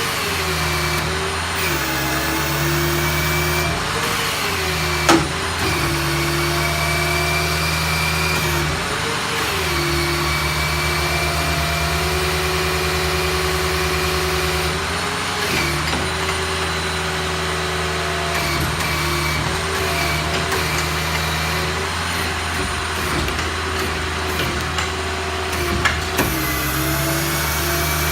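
Ford 6.0 diesel engine running with the PTO driving the hydraulic pump for the service crane. Its note dips and recovers every few seconds as the crane functions are worked. A sharp click comes about five seconds in.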